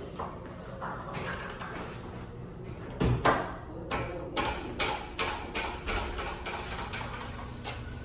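A restroom door thumps shut about three seconds in, followed by a run of sharp knocks, about two a second, that die away near the end.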